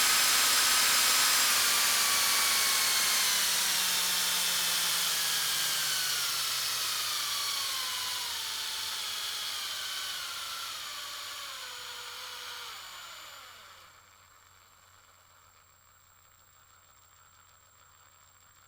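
Electric drill motor spinning down after full speed: a whine whose pitch and loudness fall steadily for about thirteen seconds, then fade almost to nothing.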